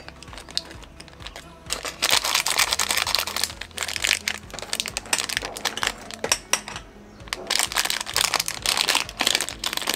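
Clear plastic film wrapper of an Appenzeller Bärli-Biber cookie crinkling and rustling as fingers pull and pick at it to open it, in irregular bursts with short lulls about a second in and near seven seconds.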